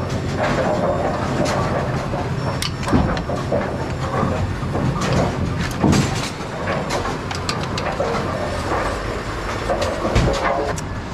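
Continuous clatter of running bowling pinsetter machinery, with a steady rumble and many irregular sharp metallic knocks and clacks; the strongest knocks come about 3, 6 and 10 seconds in.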